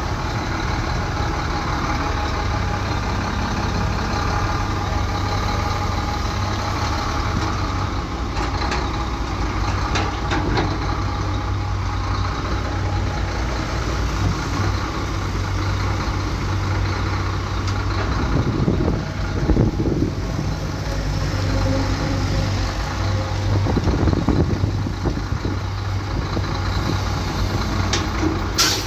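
Heavy diesel earthmoving machinery running steadily with a deep, even hum, with a few sharp knocks and short louder surges partway through.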